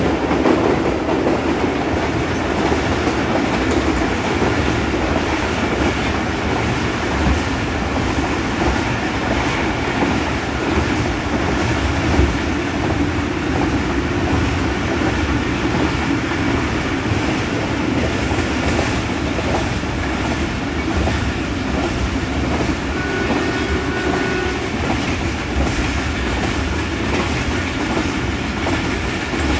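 Passenger train running along the track, heard from on board: a steady rumble with the clickety-clack of the wheels over rail joints.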